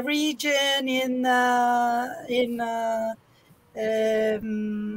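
One person's voice, speaking haltingly with long drawn-out sounds held at a level pitch, each lasting up to about a second, with a short pause partway through.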